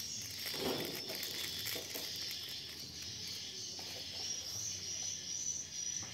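Steady, high-pitched buzzing chorus of insects, with a few faint knocks and scrapes of a spoon in a metal cooking pot.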